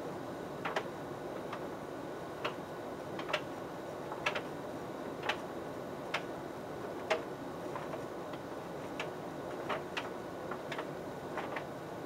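Electrolux-built John Lewis JLTDH15 heat pump tumble dryer running a wool timed programme: a steady machine noise with light clicks about once a second, unevenly spaced.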